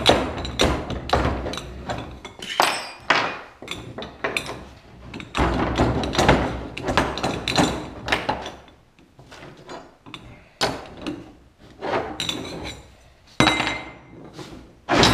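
Repeated, irregular metal knocks and clanks, some ringing briefly, as a mandrel is levered and worked out of a freshly bent aluminium tube on a rotary-draw mandrel bender.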